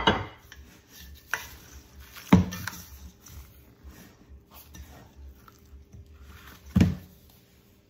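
Stainless steel mixing bowl knocking and clattering as gloved hands dig into it and pull out stretchy pizza dough. Three louder knocks, at the start, a little over two seconds in and near the end, with smaller clicks and rustles between them.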